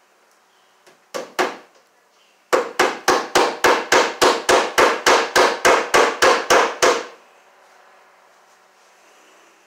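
Hammer blows on the wooden ceiling boards overhead: two strikes about a second in, then a quick, even run of about sixteen blows, roughly three or four a second, that stops a couple of seconds before the end.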